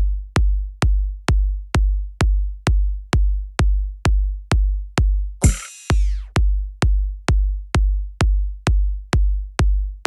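Electronic hip-hop outro beat: a deep drum-machine kick with a long booming bass tail hits about twice a second, with a bright cymbal-like crash about five and a half seconds in, where the bass drops out for a moment before the beat resumes.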